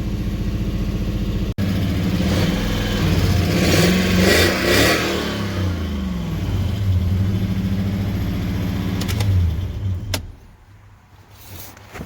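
1992 Lexus LS400's 4.0-litre V8 running, its note rising and falling as it revs, with a brief dropout about a second and a half in. The engine sound cuts off about ten seconds in, followed by faint scattered clicks.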